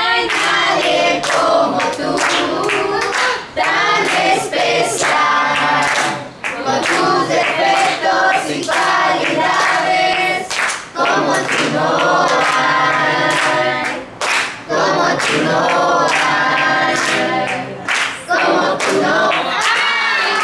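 A group of voices singing a birthday song together, with rhythmic hand clapping keeping time.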